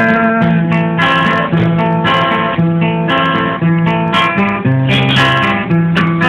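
Acoustic guitar strummed in a steady rhythm, chords ringing with changing bass notes and no voice.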